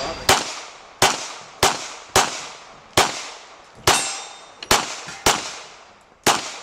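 Glock 17 race pistol firing a string of nine shots, unevenly spaced about half a second to a second apart, each crack ringing out briefly. This is a timed practical-shooting stage run after the start beep.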